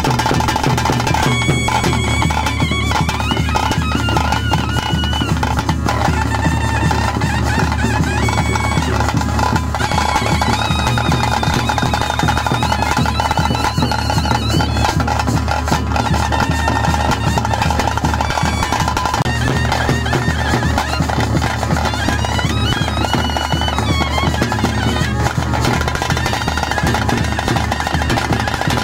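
Traditional ritual music of a Tulu bhuta kola (nema): dense drumming under a high, wavering melody over a steady drone.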